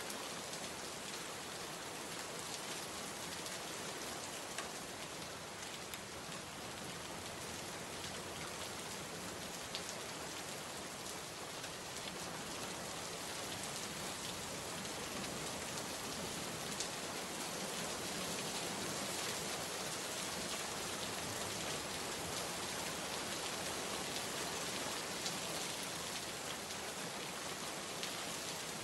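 Steady rain falling, with an even hiss and faint scattered drop ticks, growing slightly heavier about halfway through.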